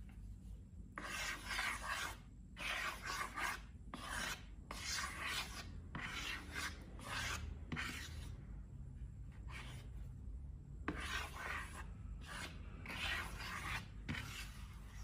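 Repeated dry scraping strokes during slime making, each under a second and coming in quick succession, with a pause of about two seconds midway.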